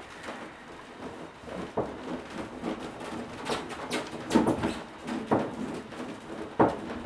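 A handful of irregular light knocks and clicks, spaced unevenly, over a faint background hiss.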